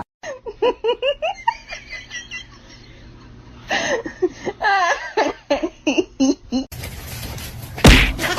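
A person laughing in runs of short giggling bursts, then a second run of laughter. Near the end the sound changes to a hiss with one loud, sudden noise.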